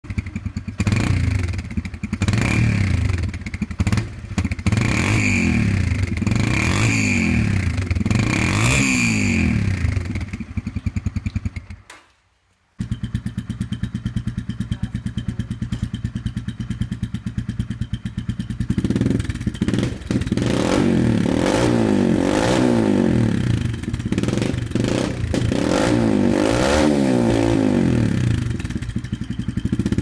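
Yamaha TT-R125's single-cylinder four-stroke engine revved repeatedly through its stock exhaust, in quick throttle blips that rise and fall. After a short break about 12 seconds in, it idles steadily through a GYTR aftermarket silencer, then is revved again in repeated blips.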